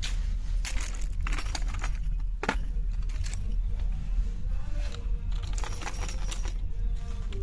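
Small objects being handled: a run of light clicks, rattles and rustles over a steady low rumble.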